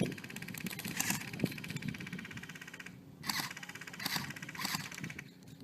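Airsoft guns firing rapid full-auto strings. A long run of quick, evenly spaced shots is followed by several short bursts in the second half.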